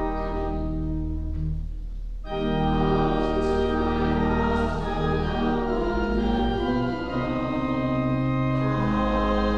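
Church organ playing slow, sustained chords, with a short break between phrases about two seconds in.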